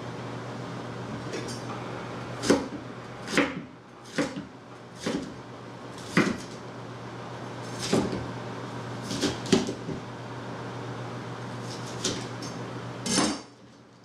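Chef's knife chopping a green bell pepper on a plastic cutting board: about ten separate knocks of the blade on the board, irregularly spaced, over a steady low hum.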